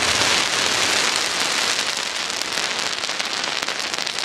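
Daytime fireworks overhead: a dense crackling of countless small reports, like hard rain, slowly thinning out.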